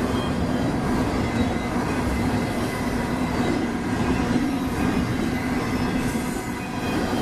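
Union Pacific intermodal freight train rolling past with a steady rumble of steel wheels on rail, and faint thin steady tones over it, like light wheel squeal.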